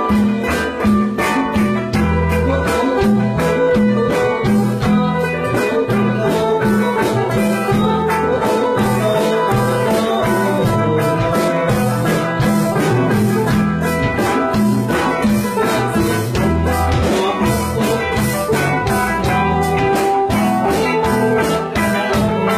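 A band jamming a song in a rehearsal room, with a steady drum beat and a bass line.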